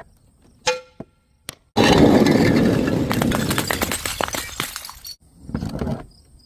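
A glass bottle clinks once, then shatters with a long cascade of breaking and tinkling glass shards that slowly dies away over about three seconds; a second, shorter and quieter crash of glass follows near the end.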